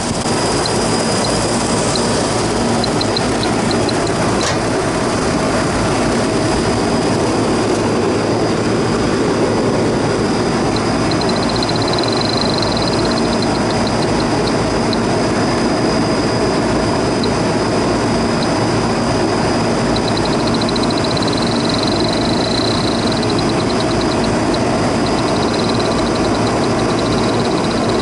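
Rooftop air conditioning condensing units running: a steady noise of fans and compressors with a low hum. A high, rapid ticking comes and goes over it.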